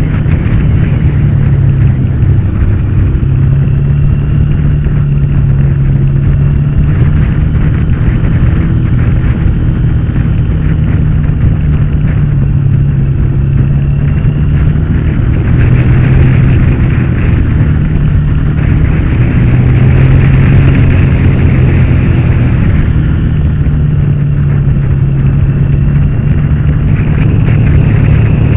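Motorcycle engine running at a steady cruising speed, heard from a camera mounted on the moving bike, with heavy wind rush over the microphone; the engine note holds steady and gets louder for a stretch around the middle.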